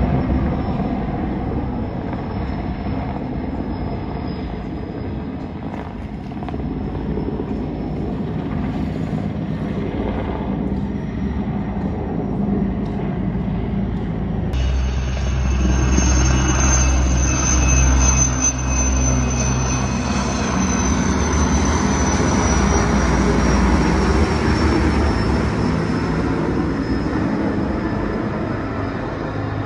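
Large firefighting helicopter, an Erickson S-64 Air-Crane, flying overhead: steady rotor noise with a high turbine whine. The sound grows louder about halfway through, and the whine slowly drops in pitch towards the end.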